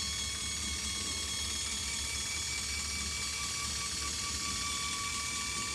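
Run-Chicken T50 automatic coop door opener's small electric gear motor running steadily with an even whir, winding the red sliding door upward to open it.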